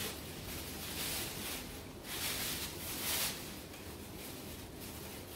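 Thin plastic aprons rustling in several soft swishes as their ties are pulled and knotted.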